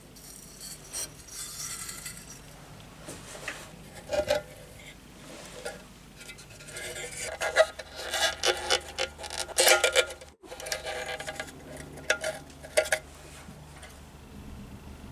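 Scraping and rubbing on the old Meva lantern's sheet metal, with irregular clicks and knocks, denser and louder in the second half.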